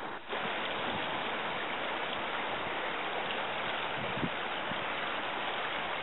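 Steady outdoor rushing noise, even and unbroken, that briefly drops out just after the start. There is a soft low knock about four seconds in.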